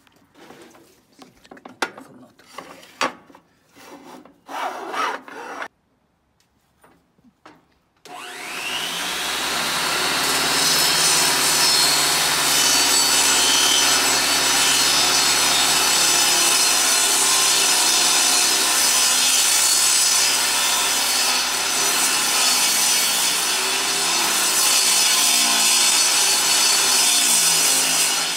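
Clicks and knocks of a portable table saw's miter gauge and board being handled, then about eight seconds in the saw's motor starts with a quick rising whine and runs steadily as a softwood board is fed through the blade along the rip fence.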